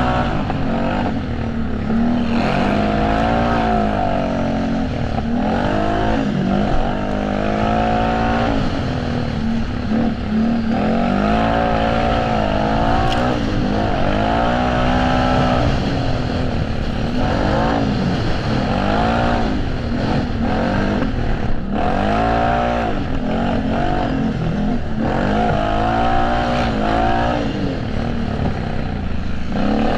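Can-Am Renegade ATV engine racing under hard throttle, its pitch climbing and dropping over and over as it is revved out, backed off and shifted.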